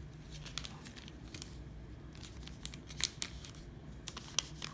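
A folded sheet of white origami paper handled by hand: a scattering of short, sharp paper crinkles and light taps against a table, over a faint steady low hum.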